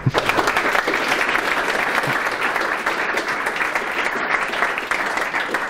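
Audience applauding: many people clapping steadily, dying away just after the end.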